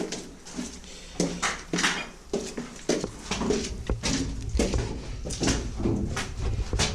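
Footsteps crunching and knocking over rubble and debris in an irregular walking rhythm, with a low rumble on the microphone from about three seconds in.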